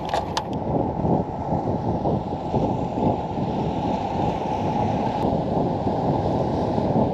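Steady rushing wind and water noise on a fishing boat out on the lake, a low rumble with no engine tone in it.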